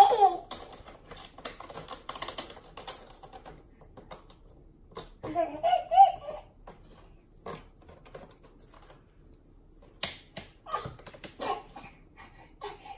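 Rapid ticking and scratching on a corrugated cardboard cat scratcher as a baby's hand and a cat's paws work at it, densest in the first few seconds, then in scattered bursts. A baby laughs briefly about five seconds in.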